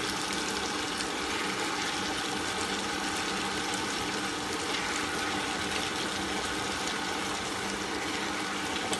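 Ultra table-top wet grinder running steadily, its stone churning soaked urad dal and water into batter: an even wet churning with a faint steady motor tone.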